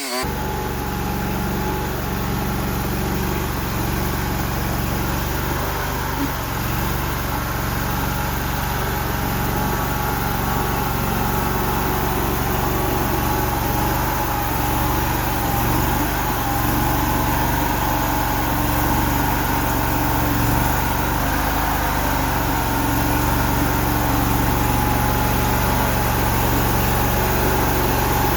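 Mini skid steer's engine running steadily, a little louder in the second half.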